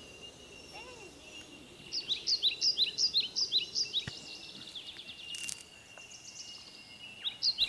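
Wild birds calling: quick runs of short, sharp chirps, loudest from about two to four seconds in and again near the end, over a steady high-pitched hum.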